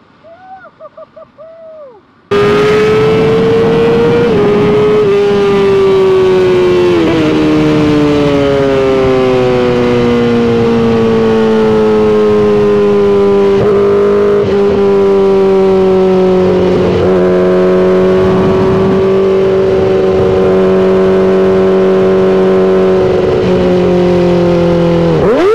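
Sport motorcycle engine running hard and steady at cruising speed, heard from the rider's position. It starts abruptly about two seconds in, its pitch easing slowly down and dropping near the end as the throttle is rolled off.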